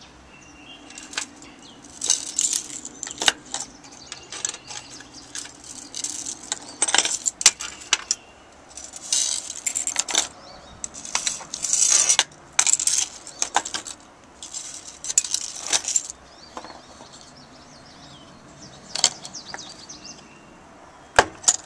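Metal keys and small trinkets jingling and clinking as they are handled, in irregular bursts of a second or so with short pauses between.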